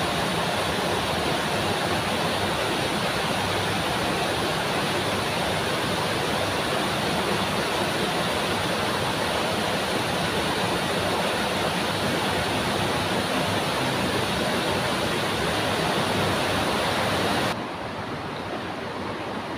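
Steady rushing of a shallow stream running over a concrete channel. About two seconds before the end it drops quieter and duller.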